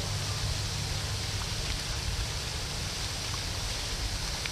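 Steady rushing, hissing water noise from a pond fountain's spray, with a low rumble underneath.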